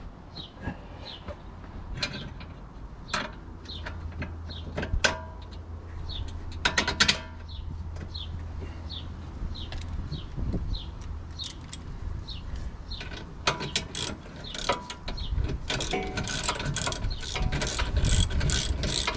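Hand tools clinking and a ratchet clicking while working on a car's rear suspension, the clicks denser near the end. A low hum runs for a few seconds in the first half, and a small bird chirps over and over.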